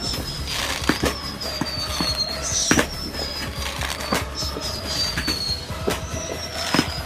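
Fireworks going off: a string of high whistles, each starting with a sharp crack and sliding slowly down in pitch, over scattered pops and crackles.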